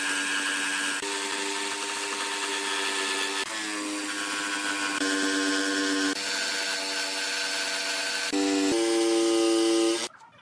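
Electric jigsaw cutting a curve through a thick softwood panel, its motor whine stepping to a new pitch several times. It stops abruptly near the end.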